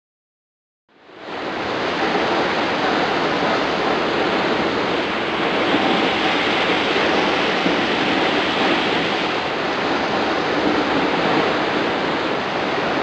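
Waterfall roaring: a steady, dense rush of falling water that fades in quickly about a second in.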